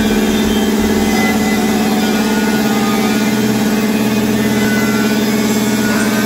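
Anest Iwata 5 HP two-stage, oil-lubricated reciprocating air compressor running steadily, its electric motor and piston pump giving a constant loud mechanical hum.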